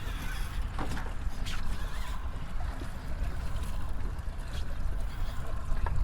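Water lapping around a small fishing boat over a steady low rumble, with a few faint clicks.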